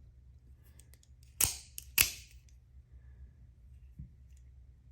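Microtech out-the-front automatic knife firing: two sharp metallic snaps about half a second apart as the blade shoots out and is pulled back in, then a faint tick near the end.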